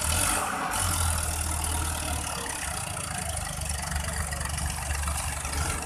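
Sonalika DI 750 tractor's diesel engine working steadily as it drags a rear blade through sand, with a second tractor's engine running close by. A short rush of noise comes right at the start.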